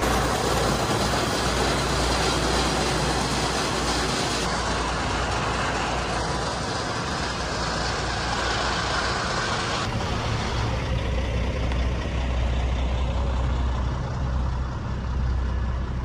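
A heavy truck or tractor engine running steadily, with a broad rushing noise over it. The noise changes abruptly twice and is thinner in the second half.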